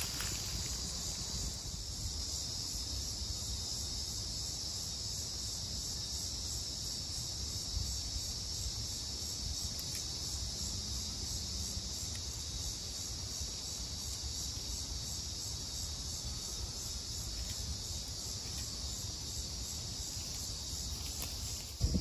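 Steady, high-pitched insect chorus, such as crickets, over a low rumble of wind on the microphone.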